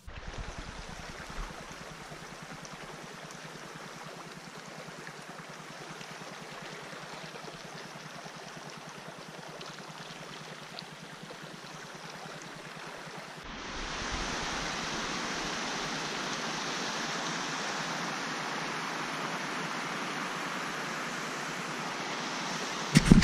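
Steady rush of a stream's running water, an even hiss with no pitch to it. About 13 seconds in it cuts abruptly to a louder stretch of water.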